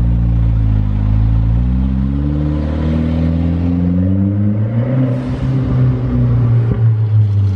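Mitsubishi Lancer Ralliart's turbocharged four-cylinder engine heard from inside the cabin as the car pulls away. The engine note rises for a few seconds, then holds steady.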